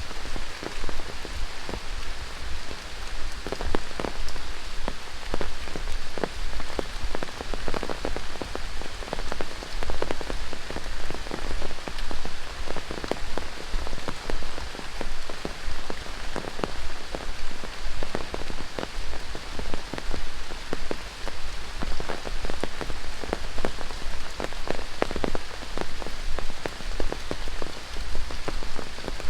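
Steady tropical rain falling on rainforest foliage, a dense even hiss with many close individual drops pattering.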